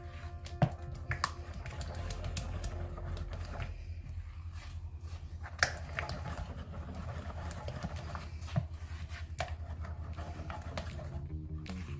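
A spoon stirring a thick yogurt and condensed-milk mixture in a bowl, with soft scraping and a few sharp clinks of the spoon against the bowl, over a steady low hum.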